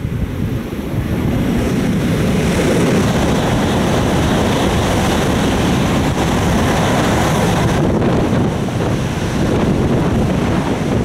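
Tohoku Shinkansen E5-series bullet train passing close at high speed: a loud, steady rush of air and rolling noise that builds about a second in and holds as the long coupled train sweeps by. Wind buffets the microphone in the train's slipstream.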